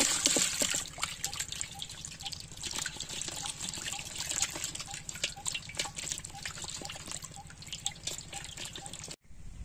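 Water and live fish poured from a clay pot into a metal basin, with a loud splash at the start. Then the fish flap and slap in the shallow water, making many small wet splashes and drips. The sound cuts off abruptly near the end.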